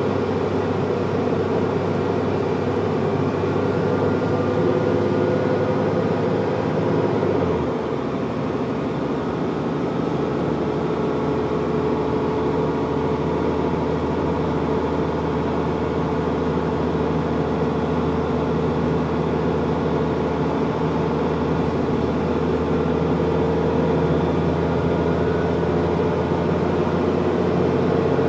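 Diesel engine and drivetrain of Stagecoach South West bus 18304 running under way, heard from a passenger seat inside the bus, a steady drone with a held whine. About seven and a half seconds in, the low engine note drops and the sound dips briefly before carrying on.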